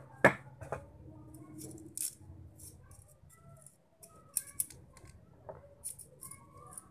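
Small sharp metal clicks and scrapes of pliers and a small pointed tool working the carbon-brush holder clips on a hand mixer's motor, straightening the clips to free the brushes. The loudest click comes a fraction of a second in, with more scattered ticks after it.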